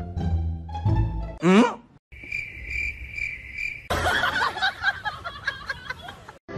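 Playful music with a rising boing, then crickets chirping for about two seconds in a steady high pulse about four times a second, the comic 'crickets' silence gag. A busier, louder jumble of sound follows and cuts off just before the end.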